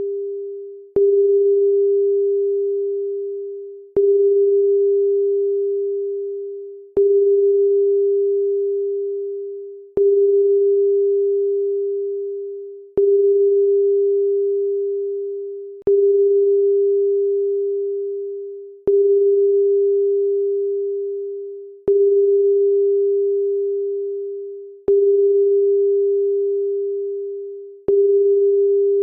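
A pure electronic tone at one low-middle pitch, starting sharply with a click every three seconds and fading away before the next one, about ten times over.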